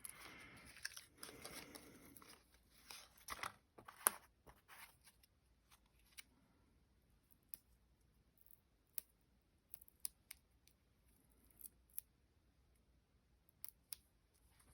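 Faint paper-crafting sounds: die-cut card pieces rustling as they are handled for the first few seconds, a sharp tap about four seconds in, then occasional soft clicks.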